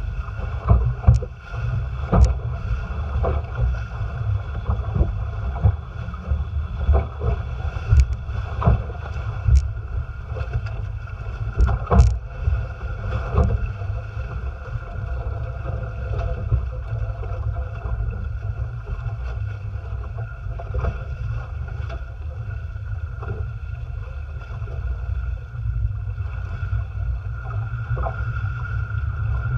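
Wind buffeting the microphone and water rushing past the hulls of a Haines Hunter Tramp folding trimaran sailing fast through chop. Sharp splashes and slaps as the hulls hit waves come mostly in the first half.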